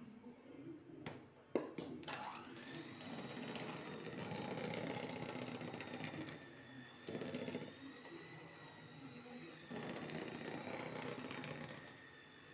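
Electric hand mixer running with its beaters in cake batter, mixing flour into creamed margarine and eggs: a steady motor whine that swells and dips as the beaters move through the bowl. It is preceded by a couple of knocks about a second in.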